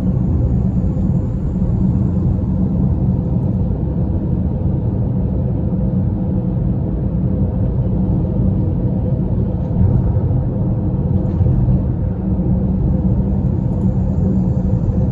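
Steady low road and engine rumble inside a car's cabin while it drives along a highway at speed.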